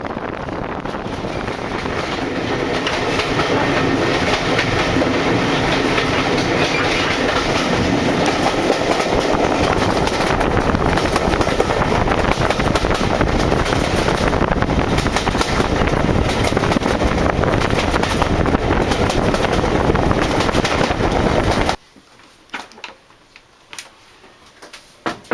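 Inside a moving diesel train carriage: steady running noise of the wheels on the rails and the engine, building up over the first few seconds. It cuts off abruptly near the end, leaving a much quieter stretch with a few clicks.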